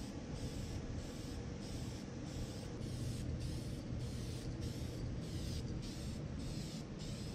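Aerosol spray can of seat dye spraying in one long, steady hiss.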